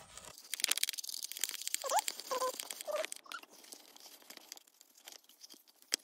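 Fingers scratching and picking at the plastic end of an Inic i20 cordless vacuum's roller brush, pulling out tangled hair: a quick run of small scratchy clicks and rustles that dies down after about three and a half seconds.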